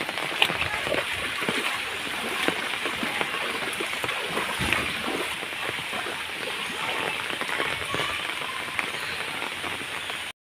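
Rain pouring onto floodwater: a steady wash of water noise with many small splashes and drips.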